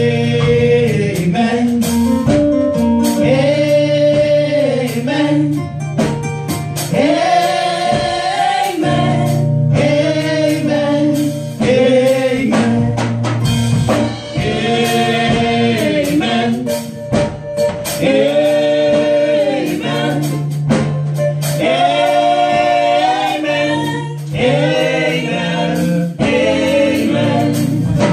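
Female gospel vocal group singing a worship song into microphones, over held low accompaniment notes.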